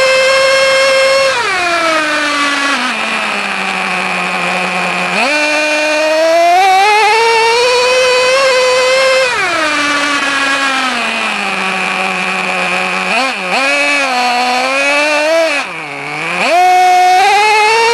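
Traxxas T-Maxx 2.5R's small two-stroke nitro engine heard from on board the truck, revving high under throttle and falling back toward idle again and again. It drops off about a second in and climbs back about five seconds in. It falls again near the middle, then dips sharply twice before revving back up near the end.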